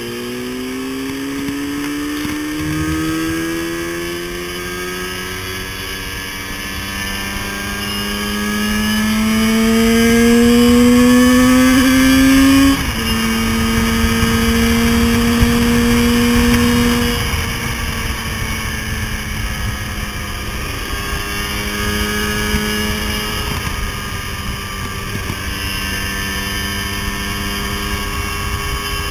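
Motorcycle engine running under way, with wind rushing over the mic. Its pitch climbs slowly as the bike gathers speed, drops sharply about 13 seconds in, holds, then falls again a few seconds later and runs steadily.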